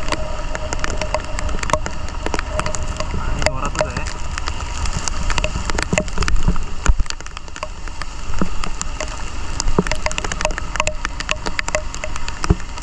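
Raindrops ticking rapidly and unevenly on a GoPro's waterproof housing, muffled by the case, over a steady low rumble of wind and the moving two-wheeler.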